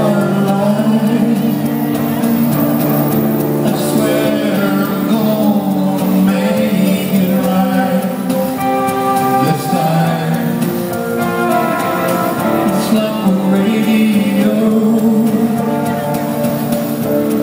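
Live rock band playing a slow song, with a man and a woman singing together over electric guitar.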